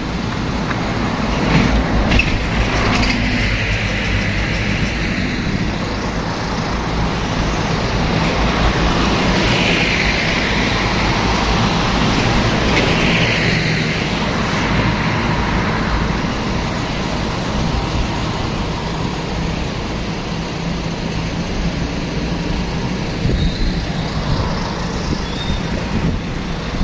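Traffic on an elevated busway: buses running nearby, a steady low rumble with a couple of louder swells of passing-vehicle noise in the middle.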